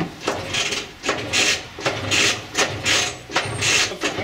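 Piaggio Ape 400R engine being cranked over again and again, each turn a short rasping stroke, about two or three a second. It turns without catching and running.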